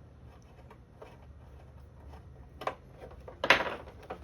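Small clicks and scrapes of a screwdriver and loose screws working on a plastic clock case, with a sharper click near the middle and a louder, short clatter about three and a half seconds in as parts come free.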